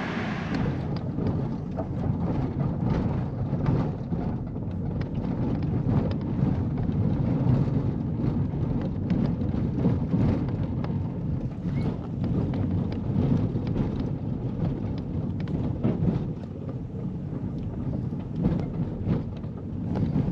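Car driving along a rough dirt track, heard from inside the cabin: a steady low rumble of tyres and suspension with scattered clicks and knocks.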